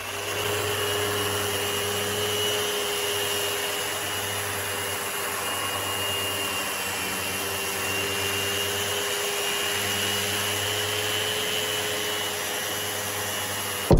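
Festool RO150 Rotex sander running steadily in geared eccentric mode with a 40-grit pad on a rough buckeye burl slab, along with a Festool CT26 dust extractor drawing through it. The noise is even, with a steady whine on top.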